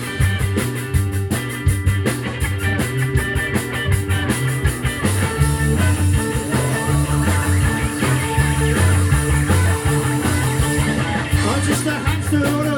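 Live space-rock band playing an instrumental passage: electric guitars, bass guitar and drum kit, with a steady beat.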